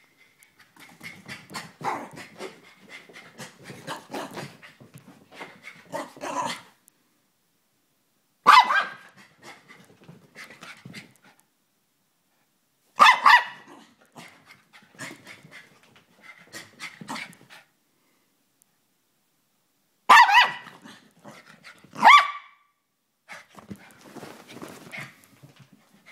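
Chihuahua barking in play: four loud, sharp barks spread across the stretch, about 8, 13, 20 and 22 seconds in, with quieter panting between them.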